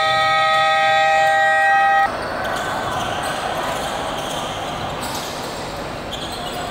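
Gym scoreboard buzzer sounding a steady multi-tone horn that cuts off abruptly about two seconds in. After it comes the hum of a large indoor gym with a basketball bouncing.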